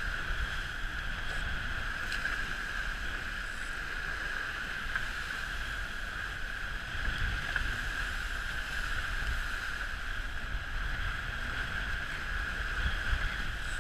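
Wind buffeting the microphone and water rushing and splashing past the hulls of a Dragonfly trimaran sailing fast in a 15–20 knot breeze: a steady rushing hiss over a low rumble.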